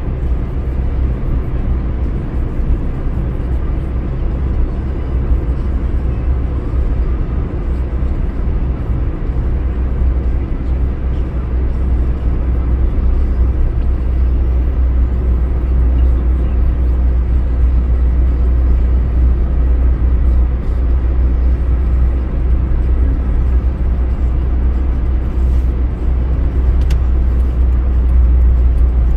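A car driving along at steady speed, heard from inside the cabin: a constant low rumble of road and engine noise.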